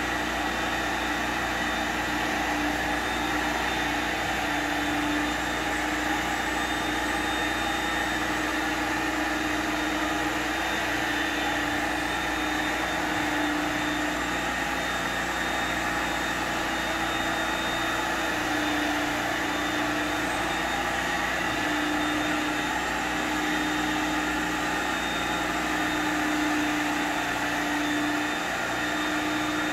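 Portable carpet extractor running steadily as its wand is drawn across a shag polypropylene rug, vacuum motors pulling up hot water. A low hum cuts in and out several times.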